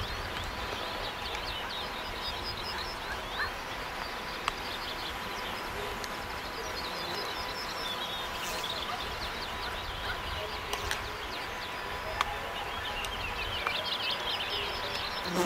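Songbirds chirping and trilling: scattered short, high notes that come in clusters, over a steady outdoor hiss.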